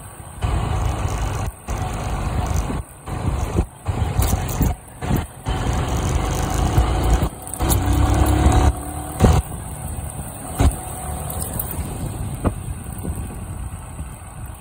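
Motorcycle riding in traffic: wind buffeting the microphone loudly over the engine. The sound cuts out briefly several times in the first half.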